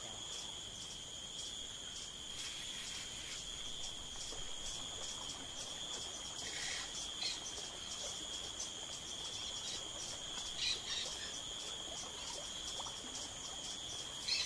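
Insects calling: a steady high-pitched trill with a faster pulsing chorus above it, and a few brief chirps about halfway through and again near the end.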